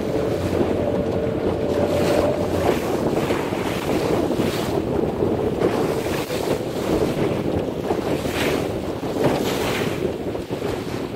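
Small aluminium boat under way through choppy sea: heavy wind buffeting the microphone over a steady motor drone, with a splash or slap of the hull on the waves roughly once a second.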